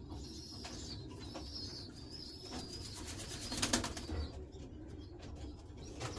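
A racing pigeon flaps its wings in a quick flutter lasting about a second, starting a little before halfway through, among faint high chirps from the loft.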